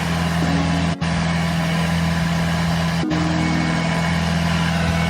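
Boom lift engine running steadily, a low, even hum, with very brief drop-outs about a second in and again about three seconds in.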